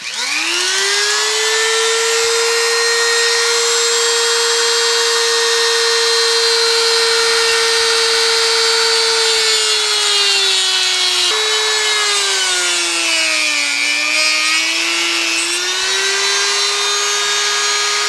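Handheld rotary tool with a cutting disc spinning up at the start to a steady high whine. About halfway its pitch sags, and it drops lowest around three-quarters of the way through as the disc bites into the servo's plastic case, then recovers near the end.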